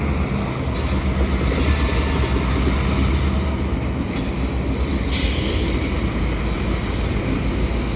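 EMD GP38-2 diesel-electric switcher locomotives, each with a 16-cylinder two-stroke engine, running with a steady low drone as they move a cut of hopper cars back along the track.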